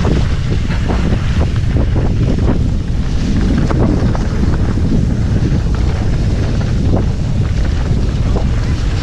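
Wind rushing over the microphone of a mountain biker riding a trail, with frequent short knocks and rattles from the bike over rough ground.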